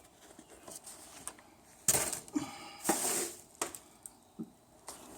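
Metal tools and parts being handled: a string of clinks and knocks, with two louder clatters around the middle.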